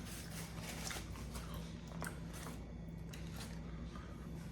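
A person chewing a chicken wing, with faint scattered wet mouth clicks over a steady low hum.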